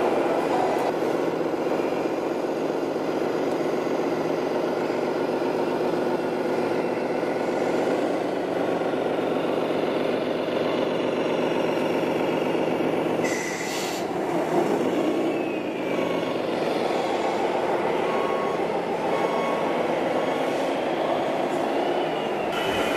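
Sound modules of radio-controlled model trucks playing a diesel truck engine running steadily through their small speakers as a truck drives past. A short hiss comes about 13 seconds in.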